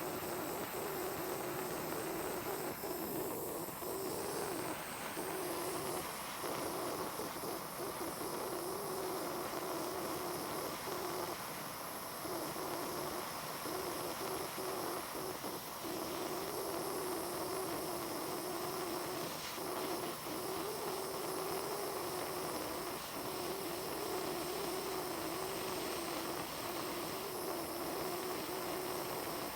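Blazer butane torch flame running steadily while it heats the seam of Argentium sterling silver to fuse it, with the metal at the point of melting.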